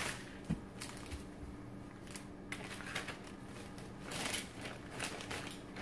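Plastic Ziploc freezer bag crinkling and rustling in irregular crackles as a frozen steak is slid into it, louder about four seconds in. A faint steady hum runs underneath.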